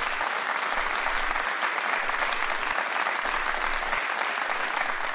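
Steady audience applause.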